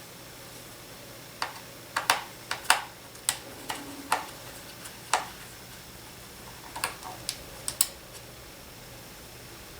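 Sharp small clicks and taps of a screwdriver and loose screws against a laptop's plastic bottom case, about a dozen in two clusters, the second cluster near the end.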